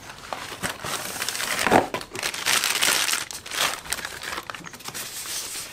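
Packaging crinkling and rustling as a new motorcycle rear shock absorber is pulled from its cardboard box and its white wrapping is handled, with the sharpest rustle nearly two seconds in.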